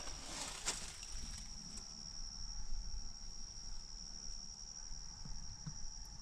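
An insect trilling steadily on one high, thin note, with a faint crunch just under a second in.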